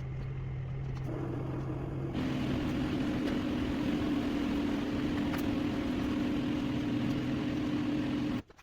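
A motor running with a steady hum. The pitch steps up about a second in and again about two seconds in, where it grows louder and airier, then it cuts off abruptly near the end.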